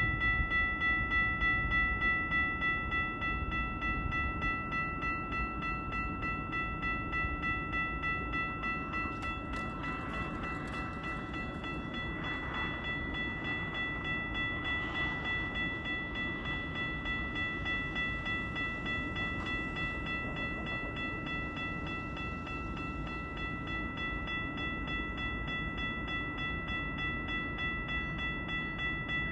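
Railway level-crossing warning bell ringing steadily while the crossing is active, over a steady low rumble.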